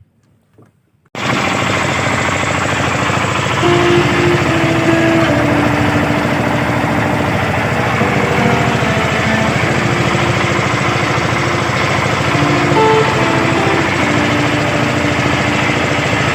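A fishing boat's engine running steadily with an even, rapid pulse, coming in abruptly about a second in.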